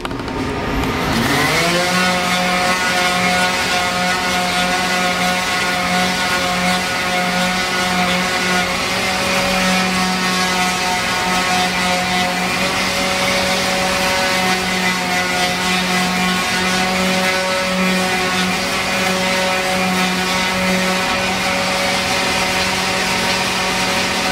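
Electric pad sander switched on, its motor winding up over about a second and a half and then running steadily with a strong hum that wavers slightly under load. It is sanding the fiberglass-covered tenon of a take-down longbow with 80-grit paper to square it up.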